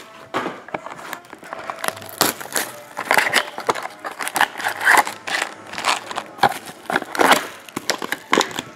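Cellophane shrink wrap crinkling as hands tear it off a box of trading cards: irregular rustles and crackles.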